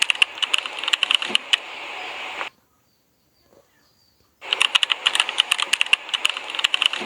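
Keyboard typing sound effect: a fast, uneven run of key clicks that stops about two and a half seconds in, then starts again after a two-second pause.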